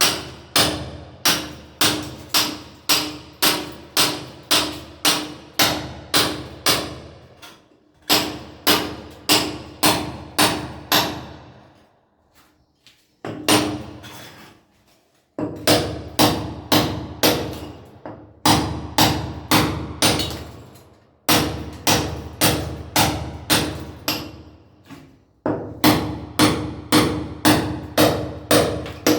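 Hand sledgehammer striking a steel chisel to break masonry, about two blows a second in runs of several seconds with short pauses between them. Each blow has a ringing metallic tone.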